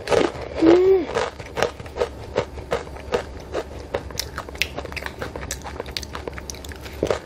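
Crunchy corn tortilla (nacho) chips being bitten and chewed close to a clip-on microphone: a steady run of sharp, irregular crunches. A brief closed-mouth 'mm' hum comes about a second in.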